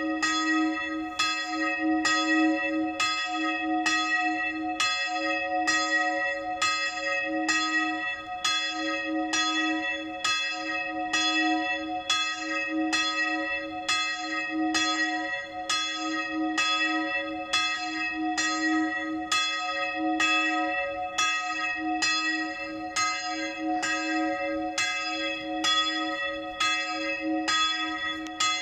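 Church bell ringing for noon, swinging and striking in a steady rhythm of a little more than one stroke a second, each stroke ringing on into the next.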